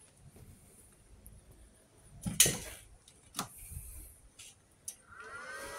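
Multipro MIG-MAG 200S G-SP inverter welder being switched on: two sharp clicks about two and a half and three and a half seconds in, then near the end its cooling fan starts up with a hum that rises in pitch and settles into a steady whir.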